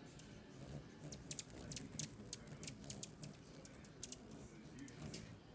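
Hummingbirds twittering: high, thin squeaky notes with many quick sharp chips, busiest between about one and four seconds in.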